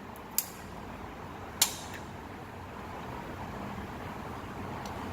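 Two sharp clicks, the second and louder about a second after the first, from screen parts being handled, over a steady even background hiss.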